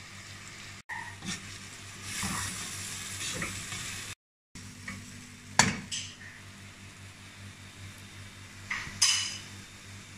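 A spatula stirring broken wheat and vegetables in an aluminium pressure cooker, scraping over a light frying sizzle, with two sharp knocks of the spatula against the metal pot.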